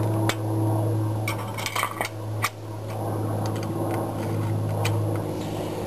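Scattered light metallic clinks and clicks as a trailer jack's wheel and its bolt are handled and fitted into the jack's bracket, over a steady low hum.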